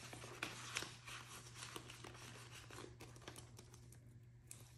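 Faint rustling and crinkling of paper banknotes being handled and slid into a clear plastic binder pocket, with a few soft clicks.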